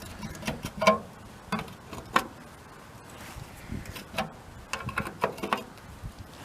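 Irregular metallic clicks and knocks of hand tools working the fastener of a VW bus fuel-door latch, about a dozen in all, with the loudest about a second in and again just after two seconds.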